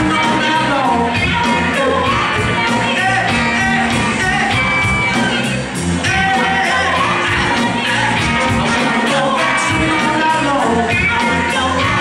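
Live band with saxophones, electric guitar and drums playing a funk/soul groove, with a voice singing over a steady drum beat.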